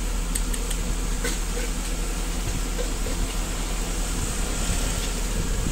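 Steady background hum and hiss at a street food stall, with a few faint light clicks about a second in.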